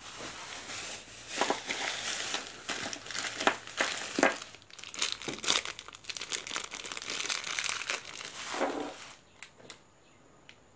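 Thin clear plastic bag crinkling and crackling in the hands as a small electronic part is unwrapped, in quick irregular rustles that stop about nine seconds in.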